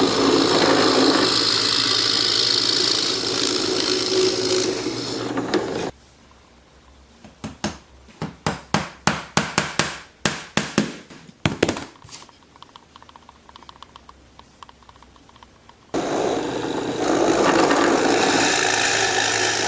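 Drill press drilling into a maple rail, running steadily for about six seconds and then stopping. A run of sharp taps follows. A power tool runs steadily again for the last few seconds.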